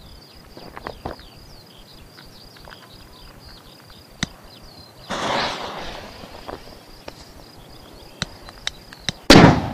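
A Jumbo Jet class-3 (P1) firecracker exploding with one loud bang near the end. Before the bang there are several quiet seconds, broken by a brief rushing noise about five seconds in.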